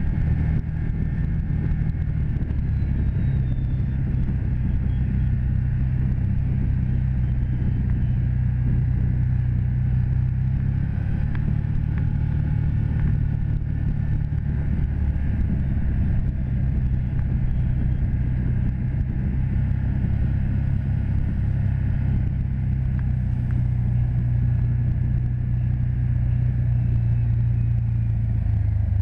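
Side-by-side UTV's engine running steadily at trail cruising speed, heard from the driver's seat, its pitch dipping and rising slightly a few times as the speed changes.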